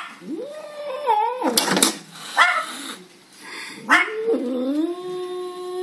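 Angry cat yowling: two long, drawn-out yowls, the first rising and wavering, the second held level for about two seconds, with short sharp cries between them.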